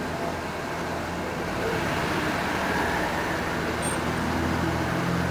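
A car driving along: steady engine and tyre noise, a little louder from about two seconds in.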